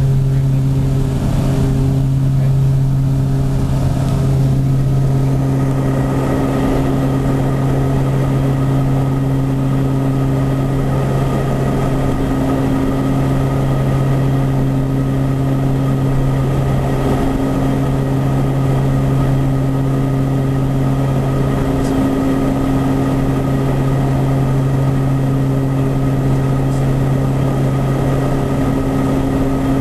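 Cockpit noise of a Beechcraft King Air B100's twin Garrett turboprop engines and propellers in flight: a loud, steady drone with a strong low hum and fainter higher tones, holding an even power setting.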